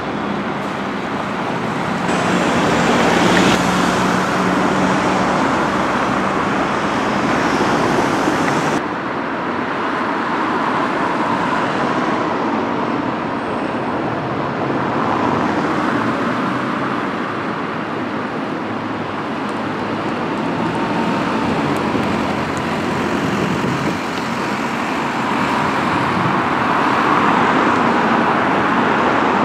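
Street traffic: a double-decker bus's engine running as it drives past, then a steady wash of buses and cars passing with engine and tyre noise. The sound changes abruptly about nine seconds in.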